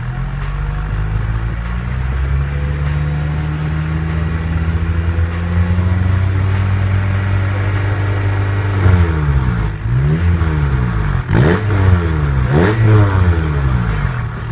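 Exhaust note from the tailpipe of an Acura RSX's K20A2 2.0-litre four-cylinder through a Comptech exhaust, held at a steady raised rev of about 3,000 rpm. About nine seconds in, the steady note gives way to a series of quick throttle blips, each rising and falling, the sharpest two being the loudest.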